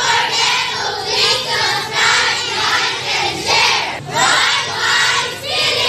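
A crowd of children's voices shouting and cheering together in loud, overlapping surges.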